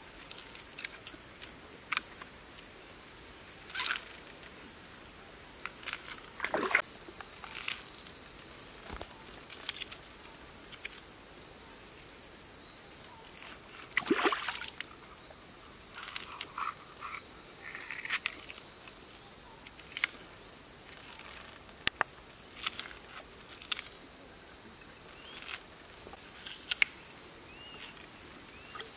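Steady high-pitched drone of forest insects, with scattered short splashes, knocks and taps of hands handling things on a wet rock at a stream's edge.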